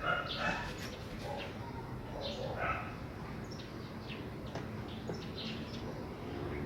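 Birds chirping and calling in short bursts over a steady low background hum, with a few faint clicks.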